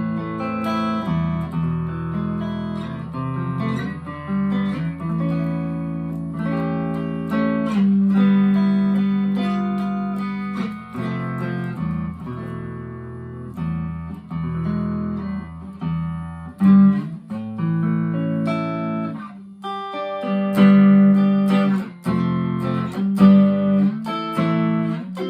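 Harley Benton TE-25th tele-style electric guitar played clean through a Marshall MG15 amp on the neck pickup: ringing chords and picked notes, with a few louder strummed chords in the second half.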